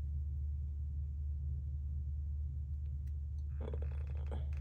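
A steady low hum, with a short noise near the end.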